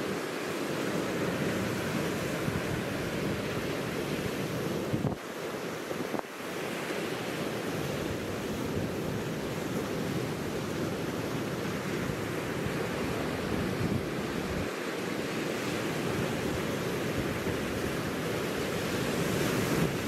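Sea waves breaking and washing over a rocky, pebbly shore, a continuous rush that swells and eases, with wind buffeting the microphone.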